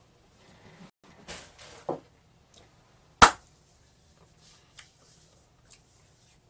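Soft rustling and handling noises, then one sharp knock about three seconds in, followed by a couple of faint clicks.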